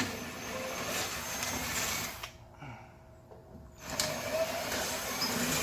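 Power drill boring a hole in a kit car's fiberglass body panel with a larger bit, in two runs of about two seconds each with a short pause between.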